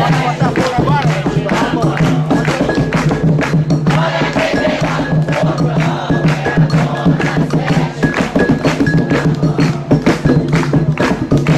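Group of voices singing a chant over fast, steady hand-drum beats, typical of an Umbanda ceremony's sung ponto with drumming.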